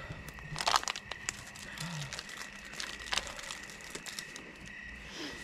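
Rustling and crinkling handling noises, with several short sharp clicks and crackles, over a faint steady high-pitched tone.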